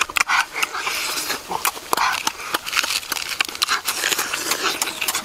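Close, loud chewing and lip-smacking of people eating boiled eggs with their hands: a fast, irregular run of smacks and clicks, several a second.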